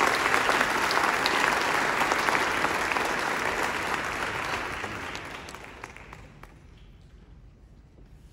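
Audience applauding, a dense patter of many hands clapping that dies away about six seconds in.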